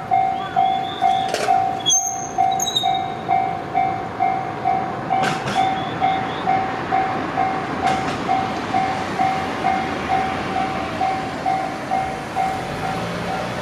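Japanese railway level-crossing warning bell ringing in even electronic dings, about two a second, signalling that a train is coming. A few sharp clicks sound over it, and a low hum comes in near the end.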